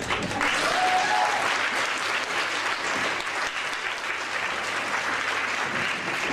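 Theatre audience applauding: the clapping starts suddenly within the first half second and keeps up steadily.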